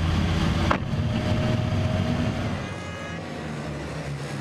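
Race trucks' turbodiesel engines running hard at speed, several together. A sharp click comes a little under a second in, and the engine sound eases off after about two and a half seconds.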